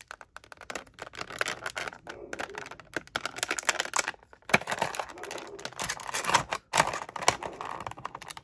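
Clear plastic blister packaging crinkling and crackling as it is handled to free an action figure: a busy, irregular run of sharp clicks and crackles.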